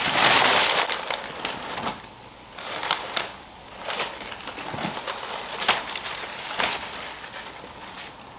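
Crumpled kraft packing paper crinkling and crunching as it is pulled out of a cardboard box. The crinkling is loudest in the first second, then comes in short rustles with a few sharp clicks.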